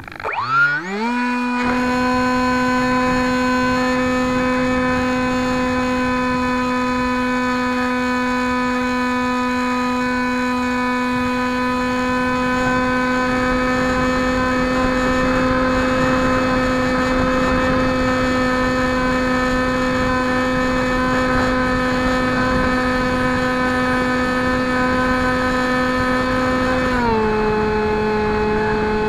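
Electric motor and pusher propeller of a Bixler RC foam plane, heard from its onboard camera: it spins up quickly in the first second, then holds a steady high-pitched whine. About 27 seconds in, it steps down a little in pitch.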